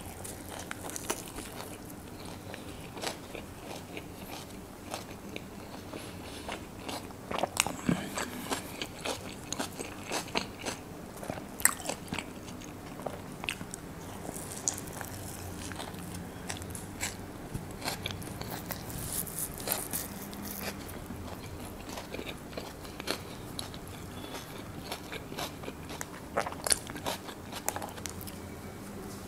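Close-miked biting and chewing of an egg-omelette and onion wrap roll, with many short, sharp crunches scattered throughout.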